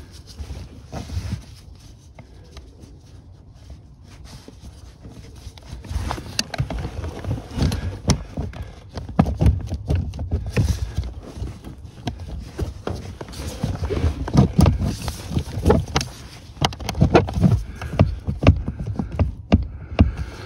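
Irregular knocks, clicks and rubbing from gloved hands working on the clutch pedal mounting under the dashboard, with sleeve and arm brushing against the microphone. It is fairly quiet for the first few seconds and busier from about six seconds in.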